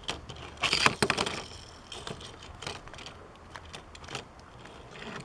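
Clicks and rattles of a die-cast Hot Wheels car on a plastic toy track, thickest around a second in, then sparser ticks.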